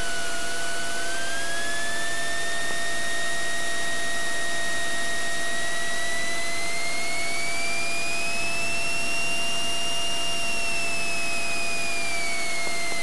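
Cockpit noise of a Cessna T182T Skylane taxiing, its turbocharged 540-cubic-inch Lycoming six-cylinder engine and propeller running steadily. A whining tone rises gradually in pitch through the middle and falls again near the end.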